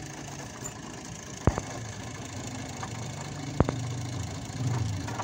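Two sharp knocks about two seconds apart, from metal parts of a diesel engine's cylinder head being handled, over a low steady hum.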